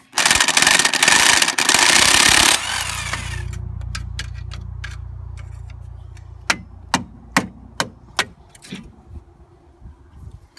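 A power tool hammering rapidly and loudly for about two and a half seconds, then a low hum that fades away, followed by a few separate sharp metallic knocks.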